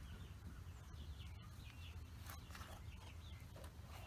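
Faint outdoor bird chirps, short calls repeating now and then, over a low steady rumble.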